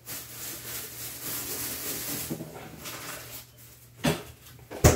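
Rustling and crinkling of plastic food packaging being handled, followed by two short knocks near the end.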